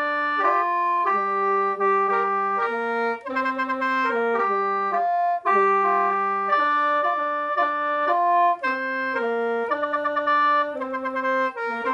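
Khaen, the Lao bamboo free-reed mouth organ, playing in the lai sao mode: several reeds sound at once in sustained chords, the melody stepping between held notes, with a fluttering pulse on some notes and brief dips in the sound.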